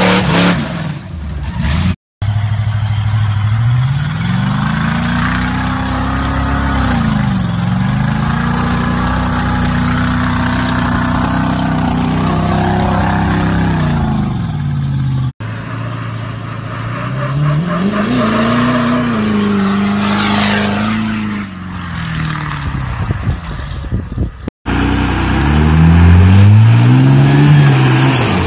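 Engines of lifted old trucks revving, rising and falling in pitch, across several short clips joined by abrupt cuts. The last, a diesel truck blowing black smoke, revs hardest and is the loudest.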